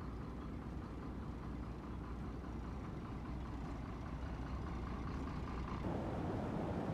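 Tanker truck's engine running steadily, a low rumble with a faint steady whine. The whine stops near the end, when the rush of floodwater comes to the fore.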